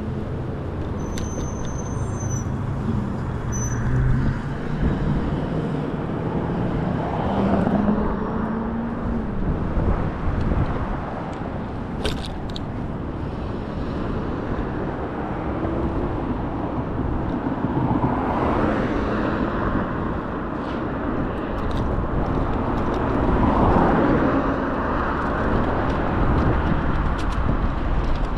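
Outdoor road noise: a steady low rumble of vehicles, swelling at times.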